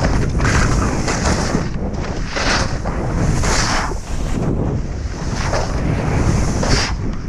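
Heavy wind noise rushing over the microphone, with hissing surges of snow coming about once a second.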